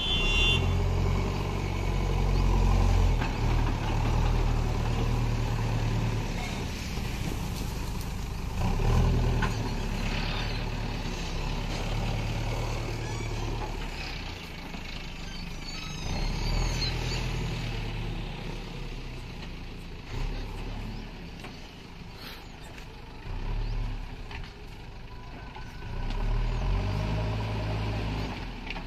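JCB backhoe loader's diesel engine running under load, revving up and falling back again and again as the machine drives and works its front bucket.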